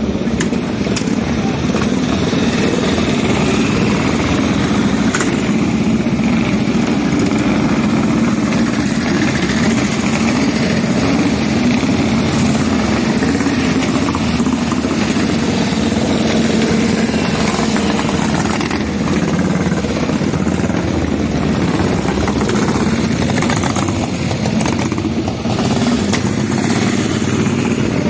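A pre-war vehicle's engine running steadily at an even speed, loud throughout.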